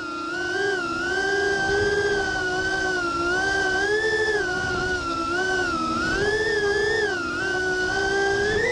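Racing quadcopter's electric motors and propellers whining, recorded from the craft itself. The pitch keeps rising and falling with the throttle, and the motors sound at slightly different pitches.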